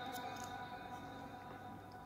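Background vocal music fading out: a few held tones die away slowly after the chant-like melody ends.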